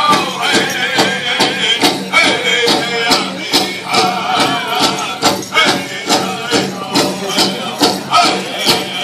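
Pow wow drum and singers: a steady drumbeat at about two beats a second under wavering singing voices.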